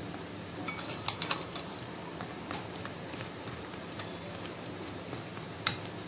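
A steel spoon clinking and tapping against a glass bowl as fried gulab jamuns are pushed down into sugar syrup: a scattering of light, sharp clicks over a steady low hum.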